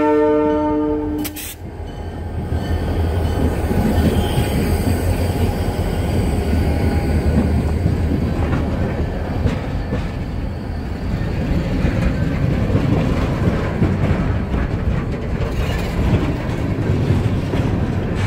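The diesel locomotive's horn finishes a chord that cuts off about a second in. Then the doubleheader's locomotives rumble past close by, with a steady low drone. Freight cars follow, their wheels clattering on the rails.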